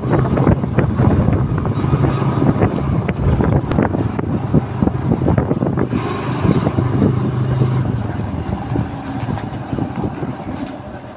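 Small motorcycle running along a rough dirt road, with wind on the microphone and knocks and rattles from the bumps. The engine's steady hum fades a few seconds before the end.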